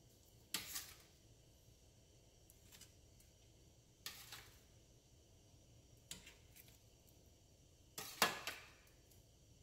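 Stainless-steel kitchen tongs clicking and chicken thighs being set down into a cast-iron skillet of mushroom gravy: four short, quiet bursts of clicks and soft splats, the loudest near the end.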